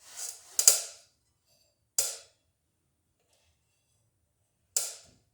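A few sharp metallic clicks and clinks of hand tools and small metal parts being handled: two close together at the start, one about two seconds in and one near the end, with quiet between.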